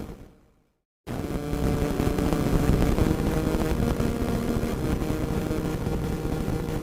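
Radio static with crackle. It fades out into a brief full silence near the start, then cuts back in abruptly about a second in and carries on dense and steady.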